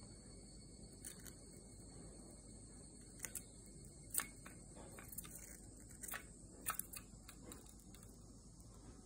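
Zebra finch pecking at a clear plastic foraging box of seed: light, irregular beak clicks and taps, the sharpest about four seconds in.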